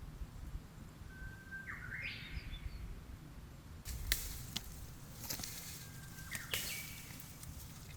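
A bird calls twice, each time a thin whistle followed by a rising, rougher phrase, over a low outdoor rumble. From about four seconds in comes a rustling hiss with several sharp clicks.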